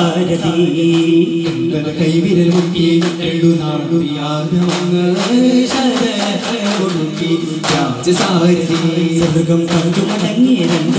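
Male voices singing a devotional song in unison on long held notes, over frequent sharp strikes on daf frame drums in a daff muttu performance.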